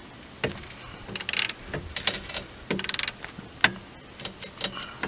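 Ratchet wrench with a 13 mm socket clicking in several short rapid runs on its back-strokes, turning the bottom nut off a car's sway bar link, with a few single clicks between.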